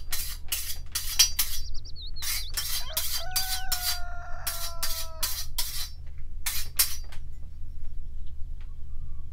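Machete blade being sharpened with a file: quick rasping metal strokes, about three a second, in several bursts that stop about seven seconds in. A bird chirps about two seconds in.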